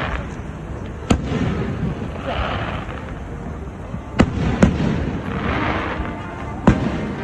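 Fireworks exploding: four sharp bangs, one about a second in, two close together just past four seconds and one near the end, over a continuous background of noise.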